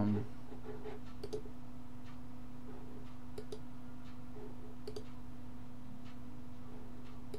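A handful of sharp computer mouse clicks, scattered a second or so apart, over a steady electrical hum.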